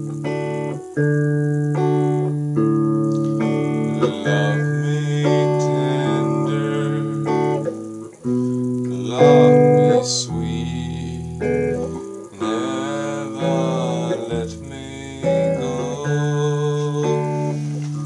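Guitar playing held chords that change every second or two, with a man singing along in several phrases from about halfway through.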